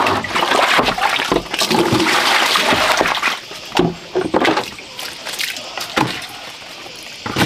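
Water splashing out of a tipped plastic basin onto a concrete floor for about three seconds, then a few quick splashes and plastic knocks as a bowl scoops water from a plastic bucket and pours it into the basin.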